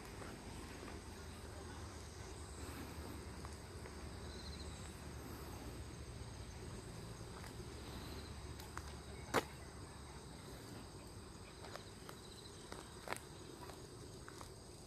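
Faint footsteps of a person walking outdoors, with insects chirping steadily in the background and a few short insect trills. A single sharp click stands out about nine seconds in, with a smaller one near thirteen seconds.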